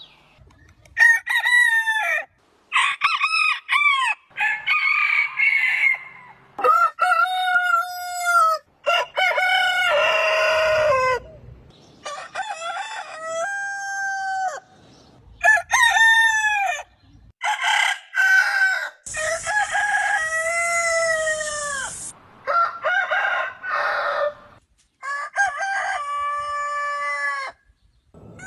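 Roosters crowing one after another: about a dozen separate crows of differing pitch and length. Each crow is a drawn-out call that rises and then falls over one to three seconds, with short pauses between them. One crow near the middle comes through a hiss.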